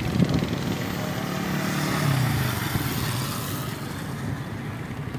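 A passing motor vehicle's engine, loudest about two seconds in, its pitch dropping as it goes by.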